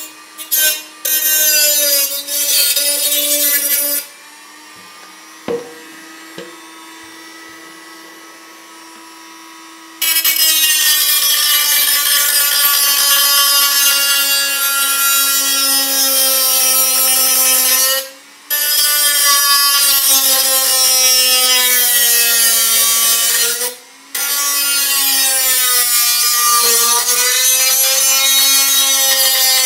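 Black+Decker RT18KA rotary tool with a cutting disc cutting through the thin steel wall of a tin can: a loud grinding hiss over the motor's whine, the whine dropping in pitch as the disc bites. From about four to ten seconds in the disc is off the metal and the tool runs free, quieter and a little higher; the cut breaks off briefly twice later on.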